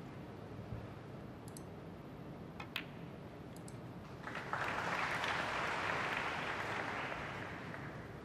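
A few light clicks of snooker cue and balls, the sharpest nearly three seconds in as a shot is played and a red is potted. Audience applause follows about four seconds in, swells, then fades near the end.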